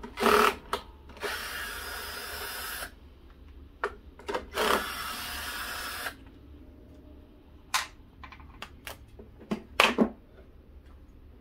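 A power drill-driver spins out the screws of a lawnmower's plastic air-filter cover in two steady runs of under two seconds each. Clicks and knocks of the plastic cover come between them, with louder ones at the start and about ten seconds in as the cover is pulled off.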